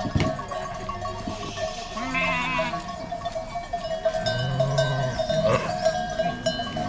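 Sheep bleating as the flock is driven into a pen: a quavering bleat about two seconds in and a lower bleat around four and a half seconds.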